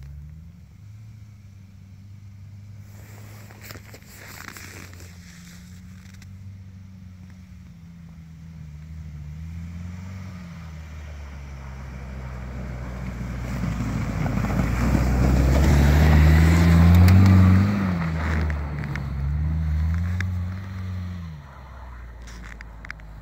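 UAZ Patriot SUV driving through snow, its engine revving up and down several times. It grows louder, loudest about two-thirds of the way through as it passes close, with rough tyre-on-snow noise, then fades as it climbs away.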